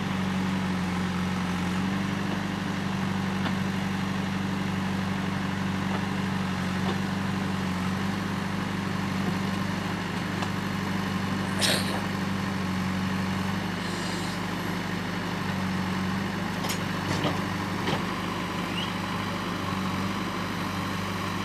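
JCB backhoe loader's diesel engine running steadily while the backhoe arm digs and loads soil. A few short sharp knocks come through about halfway through and again near the end.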